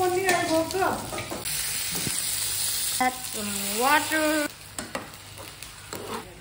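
Vegetables frying in oil in a pan, sizzling and being stirred with a metal spoon; the sizzle is loudest in the first second or so, then settles lower. Two pitched sounds that slide up and down come over it, one near the start and a louder one a little past the middle.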